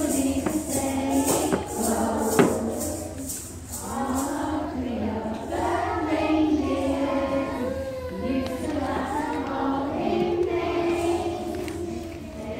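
A group of voices singing a song together. A jingling percussion instrument is shaken to a steady beat for the first four seconds or so.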